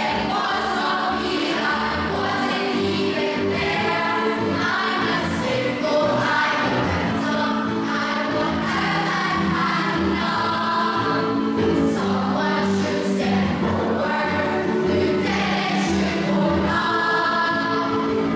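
A youth chorus singing a musical-theatre song together, with sustained sung notes.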